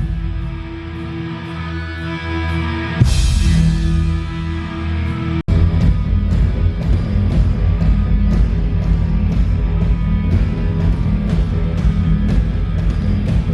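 Rock band playing live at a sound check: electric guitar, bass and drum kit. Held chords give way to a sharp crash about three seconds in. After a momentary dropout the band plays on over a steady beat with regular cymbal strokes.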